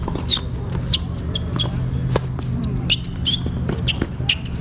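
Tennis rally: rackets striking the ball and the ball bouncing on a hard court, heard as a quick series of sharp knocks at uneven spacing, several with a short high ring.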